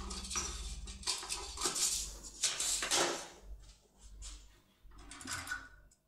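Metal clinks and scrapes of a lock-picking tool and pliers being handled, as the impression pick is withdrawn from the lock cylinder held in a vise. A run of irregular scrapes and clicks, loudest in the first half and tailing off.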